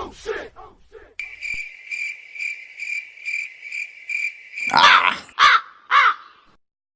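Cricket chirping sound effect: a steady high chirp repeating about two to three times a second. About five seconds in, three loud harsh calls follow in quick succession.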